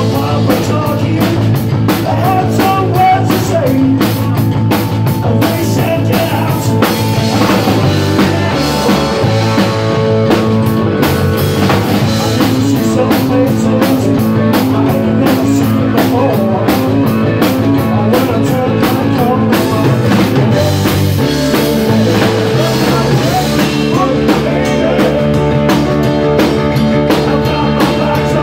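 Live rock band playing: drum kit, electric bass and electric guitar, with a male lead vocalist singing over them.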